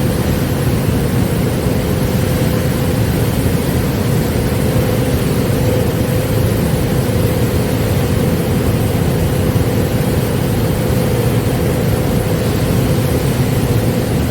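Kärcher IVM 40/12 H Z22 industrial vacuum cleaner running steadily at full suction, a loud even rush with a constant whine.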